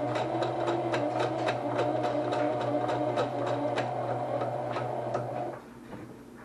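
Electric home sewing machine stitching a short-length, wide zigzag: steady motor hum with regular needle clicks, stopping abruptly about five and a half seconds in.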